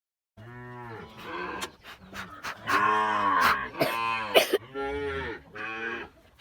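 Cattle mooing in a kraal: a string of low calls, one after another, with the loudest and longest in the middle. A few sharp clicks or knocks come in among them.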